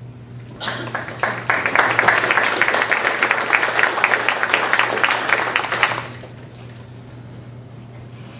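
Audience applauding, building quickly and dying away about six seconds in, over a steady low hum.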